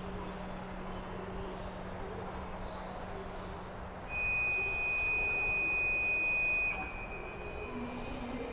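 A steady hiss with a low hum. About halfway through, a loud, steady, high whistle-like tone cuts in, drops in level a couple of seconds later, and carries on faintly.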